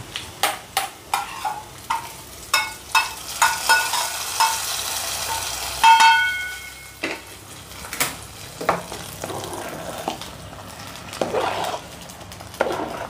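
Steel spoon clinking and scraping in a small steel kadai while a tempering of dried chillies, onion and drumstick leaves sizzles in oil. About six seconds in comes a loud ringing metal knock as the pan is tipped into the pressure cooker, followed by a steel ladle scraping as it stirs the thick vegetable rice.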